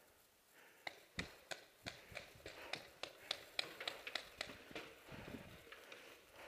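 Footsteps of a paintball player running over dry leaves and grass: a quick, even run of sharp taps, about three a second, starting about a second in and stopping near the end.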